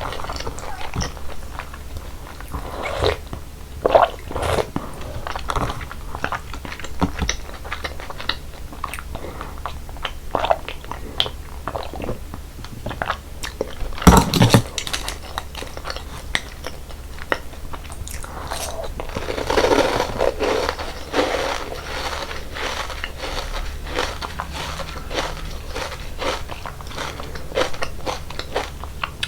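Close-miked eating sounds of cold naengmyeon: chewing and crunching with many short, sharp clicks, one sharp crunch about halfway through louder than the rest, and a longer, denser stretch of eating noise about two-thirds of the way in.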